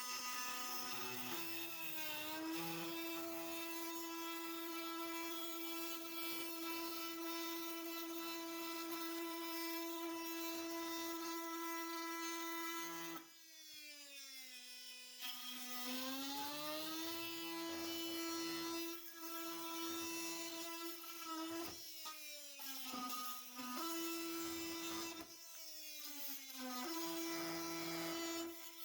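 Milwaukee M18 Fuel brushless oscillating multi-tool with a carbide blade cutting wood: a steady high buzz. Its pitch sags for a couple of seconds around the middle and dips briefly several times near the end, as the tool slows under load when it is pressed into the wood.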